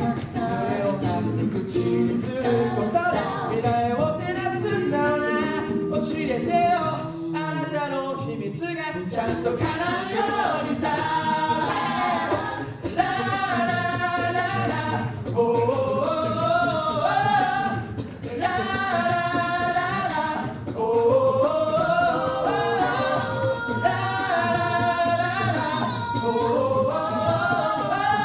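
A cappella group of six men and women singing a song in harmony through microphones, a bending lead melody over held backing chords with a low bass part underneath.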